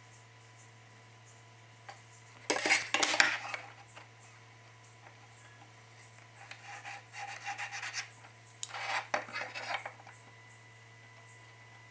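Hand scraping and rubbing on plywood, like filing or sanding, in three bouts. The first, at about two and a half seconds in, is the loudest, and two longer, softer bouts follow.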